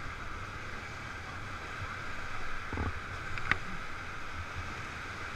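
Whitewater rapids rushing steadily around an inflatable raft, with a single sharp knock about three and a half seconds in.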